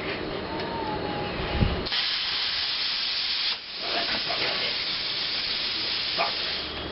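Plasma cutter torch hissing with a steady rush of compressed air, starting about two seconds in, breaking off briefly and then running on until just before the end.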